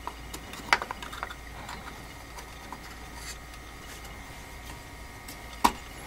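Faint clicks and rubbing of a RAM module and fingers against the plastic memory slot and latches as the module is lined up in the motherboard, with a sharper click under a second in and another near the end.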